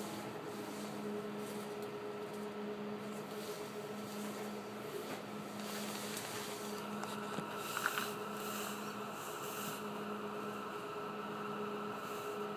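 Steady electrical hum of a standing Docklands Light Railway train's onboard equipment, heard from inside the front of the train, with a brief sharp click about eight seconds in.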